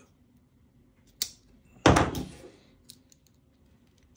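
Folding pocket knives handled on a table: a sharp click about a second in, then a louder thunk, followed by a few faint clicks.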